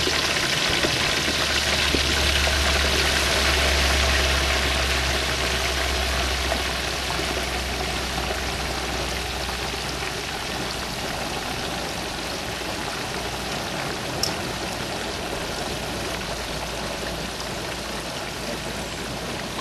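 Hot oil in a turkey fryer pot bubbling and sizzling hard around a whole turkey just lowered into it, the hiss easing off slowly. A low rumble runs under it and fades out about halfway through.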